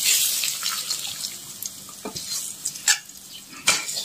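Metal spatula scraping fried fish out of a hot pan onto a ceramic plate while the oil still sizzles softly. A few sharp scrapes and clinks of metal on pan and plate come in the second half.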